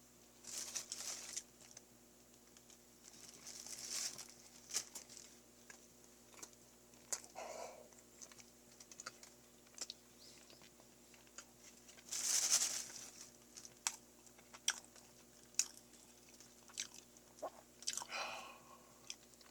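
Close-miked chewing of a mashed Choco Pie snack: scattered sticky mouth clicks and smacks, with a few longer noisy bursts, the loudest about twelve seconds in.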